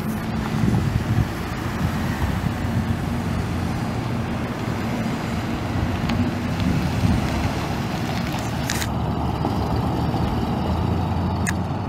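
The 2010 Ford F-150's 5.4-litre V8 gas engine running, a continuous low engine note, with a couple of short clicks about nine seconds in and near the end.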